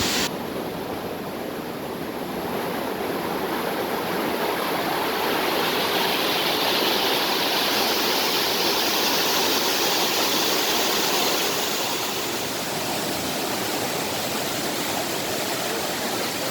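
Mountain valley stream rushing steadily over rocks. The sound changes abruptly just after the start, then grows louder and brighter for several seconds in the middle before easing slightly.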